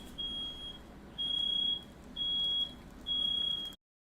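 Smoke alarm sounding, a high steady-pitched beep repeating about once a second, set off by smoke from a firework let off indoors. The sound cuts off suddenly near the end.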